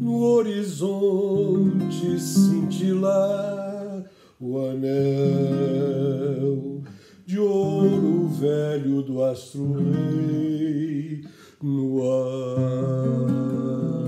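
Acoustic guitar playing chords while a man sings a slow melody over it, in phrases with short breaks about four, seven and eleven and a half seconds in.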